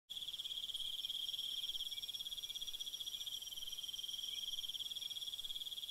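Steady high-pitched insect trill with a fast, even pulse.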